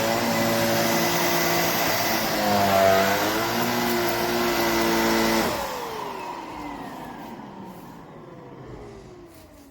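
Cecotec Conga Rockstar 3000 Mattress handheld mattress vacuum running steadily, its pitch dipping briefly about three seconds in. About five and a half seconds in it is switched off and the motor winds down with a falling whine.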